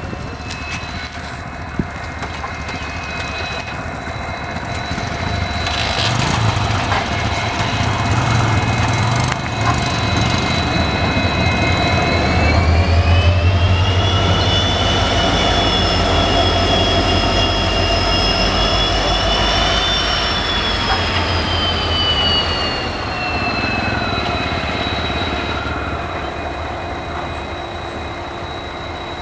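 EMD WDP4D diesel locomotive's two-stroke V16 engine running as it moves along the track: a deep throb under a high turbocharger whine. About twelve seconds in the whine rises in pitch and the engine grows louder; it holds there, then falls back at around twenty-two seconds.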